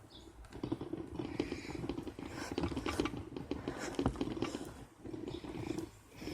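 Knife blade cutting and scraping at a piece of resinous fatwood, a steady run of small irregular scratches and cracks with brief pauses.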